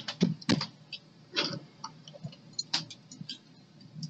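Irregular small clicks and taps of hands handling and fitting small metal and plastic parts, a wheel truck and screws, onto a model locomotive's chassis.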